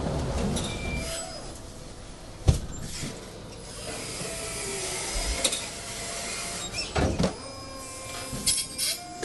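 Forklift handling pallets: a steady mechanical hum with faint whining tones, a sharp loud knock about two and a half seconds in, and more knocks and clatters later on.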